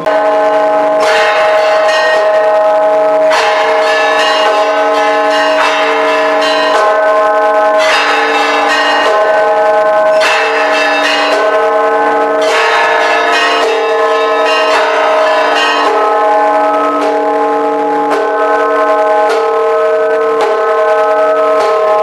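Several church bells ringing together. Fresh strikes come every second or two over long, overlapping tones that keep sounding between them.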